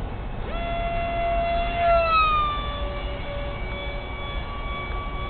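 Electric motors and propellers of a quad-rotor RC airplane whining in flight. The high, steady whine comes in about half a second in, gets loudest and drops in pitch around two seconds in, then holds at the lower pitch.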